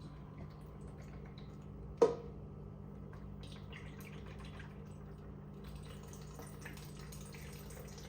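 Used refrigerator water filter being handled: a sharp knock about two seconds in, then light scattered taps and clicks over a steady low hum.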